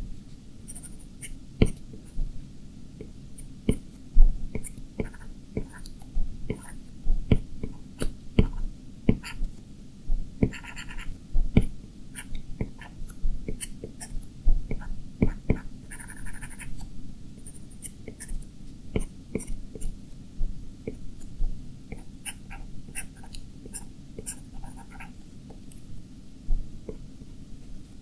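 A drawing stylus tapping on an iPad Pro's glass screen: irregular light taps, a few a second, with a couple of short scratchy strokes, over a low steady hum.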